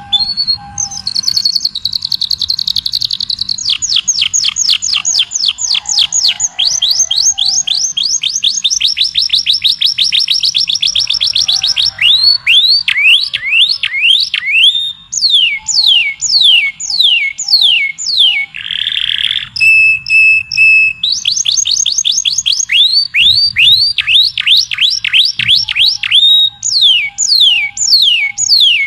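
Songbird singing: a long, fast trill of downward-slurred whistled notes, which breaks into slower, separate slurred notes about halfway through. A short buzzy note and a held whistle follow before the fast trill returns.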